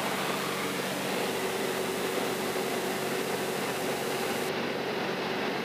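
Steady cabin drone of a light aircraft in flight: the six-cylinder air-cooled Jabiru 3300 engine and propeller running evenly, with a constant hum under an even rush of wind noise.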